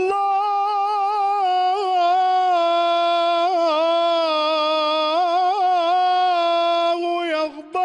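A man chanting an unaccompanied Islamic devotional supplication (ibtihal), drawing out one long held note with small melismatic turns and wavers, which breaks off near the end.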